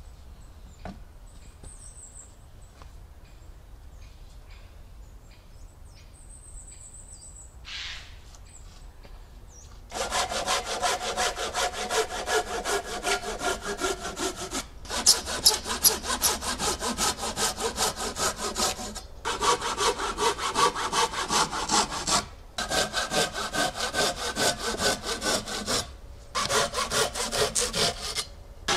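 Hand saw cutting through wood in quick back-and-forth strokes. It starts about ten seconds in, after a quiet stretch with a few faint high chirps and light knocks, and stops briefly four times before carrying on.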